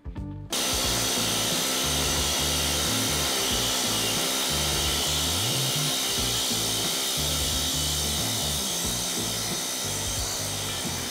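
Air-powered hoop-style planishing hammer running continuously, its die rattling rapidly against a domed sheet-metal disc as it is moved underneath to smooth it. It starts about half a second in and keeps up a steady buzzing clatter, with background music underneath.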